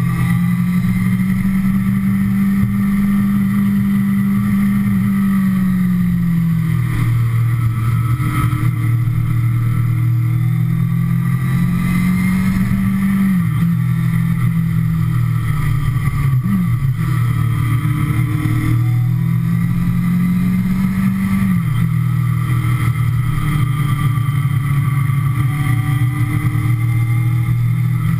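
Kawasaki ZX-6R inline-four engine running under way at steady revs, with low wind rumble; the engine note falls off a few times as the throttle is eased, dropping sharply twice, with one quick blip between.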